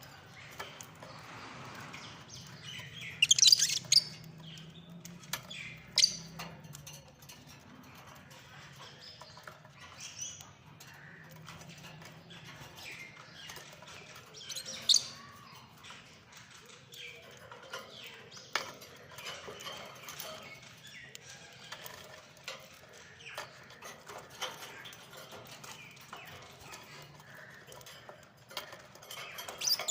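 Lovebirds chirping and chattering in many short high calls, with the loudest shrill calls about three to four seconds in and again around fifteen seconds.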